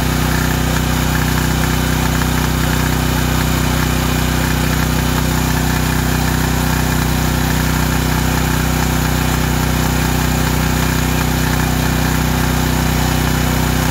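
Generac MegaForce 6500 portable generator's engine running steadily, unloaded, at its governed high speed of about 62 Hz output.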